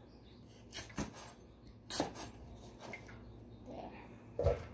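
A few separate knife strikes through green bell pepper onto a wooden cutting board, roughly a second apart, then a louder, duller thump near the end.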